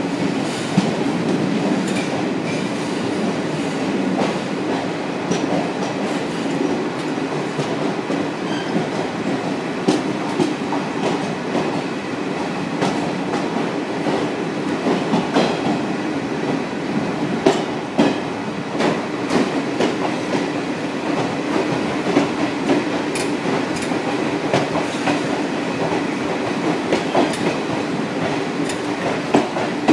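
Train running through a tunnel: a steady rumble of wheels on the rails, with irregular sharp clicks and clacks as the wheels pass over rail joints.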